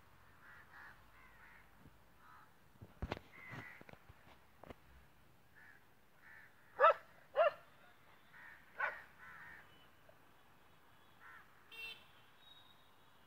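Crows cawing: fainter calls at first, then two loud caws in quick succession about seven seconds in and another shortly after. A few sharp knocks about three seconds in.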